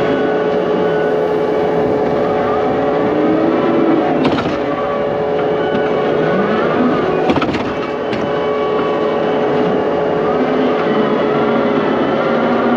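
Excavator diesel engine running steadily under hydraulic load, some of its tones sliding up and down. There are a few sharp metallic clanks around four and seven to eight seconds in.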